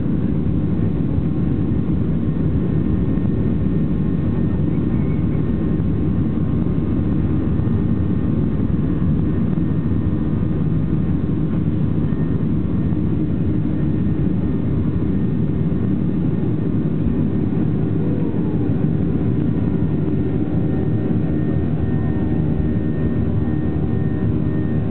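Boeing 737-700's CFM56 jet engines running steadily: a loud, even drone with several held tones, with no rise or fall in pitch.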